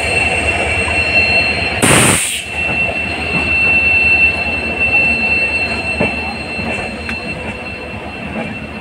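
Express train's wheels squealing on the rails with a steady high-pitched squeal over a rolling rumble, as the train slows into a junction station. A short, loud hiss about two seconds in.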